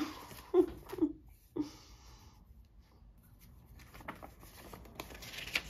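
Old paper greeting cards being handled: a card set down and the next one slid off the stack, with soft paper rustling and light taps, the rustle strongest near the end. In the first second and a half there are a few short, soft voice sounds.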